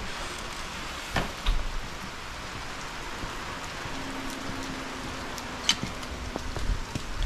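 Heavy rain pouring down, a steady hiss, with a few light clicks and knocks. A sharper metallic click comes late on as a chain-link gate latch is worked.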